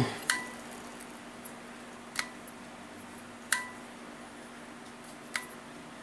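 A white toggle light switch in a handheld metal electrical box flicked four times, on and off twice, to test the remote outlet switch. Four sharp clicks spaced a second and a half to two seconds apart; the first and third carry a brief ringing tone.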